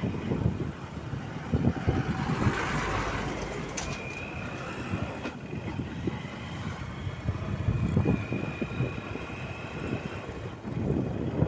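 Road noise from a moving vehicle, a steady rumble with gusts of wind buffeting the microphone. A faint thin high tone comes in twice.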